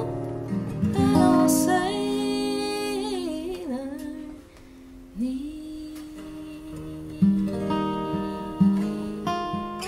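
Two acoustic guitars playing the closing bars of a slow song. A strummed chord rings and fades under a wordless sung note with vibrato that slides down about four seconds in. Then a few single picked notes and a last chord ring out.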